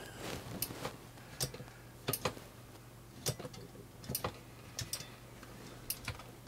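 Irregular light clicks and taps, about ten, as the metal chassis of a disassembled full-height floppy drive mechanism is handled and its parts knock together.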